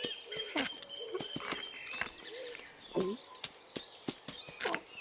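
A cartoon kitten's short voiced chirrups and mews, about three seconds in and again near the end, over birds chirping and a held whistle-like tone early on. Light sharp clicks of small footsteps on grass run throughout.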